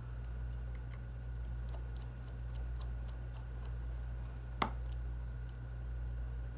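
Faint small ticks and one sharper click about four and a half seconds in, from a Phillips screwdriver and tiny screws being set into an iPhone's internal shield, over a steady low hum.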